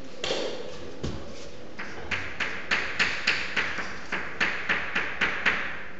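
Writing strokes tapping on a lecture board: a couple of single taps, then from about two seconds in a quick run of short, evenly spaced taps, about three a second, as the lecturer hatches in a region of a diagram.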